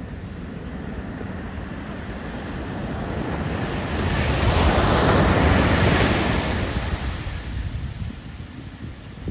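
Ocean waves breaking on a sandy shore: the rush of surf swells to a peak about halfway through as a wave breaks, then fades as the water washes back.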